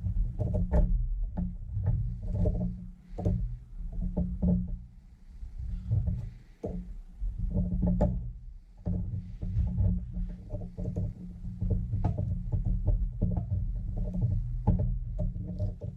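Hand tools clicking and tapping irregularly against metal parts while working the motorcycle's kickstart detent assembly loose, over a steady low hum.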